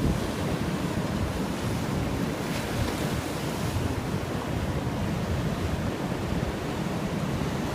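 Ocean surf washing and breaking steadily, with wind rumbling on the microphone.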